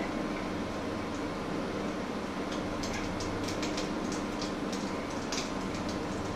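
Steady mechanical hum, with a run of light clicks and taps from about two and a half to five and a half seconds in.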